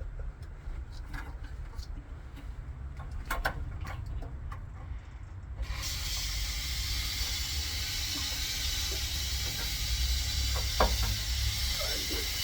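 Light clicks and knocks of parts being handled over a steady low hum; about halfway through, a steady hiss suddenly sets in and continues.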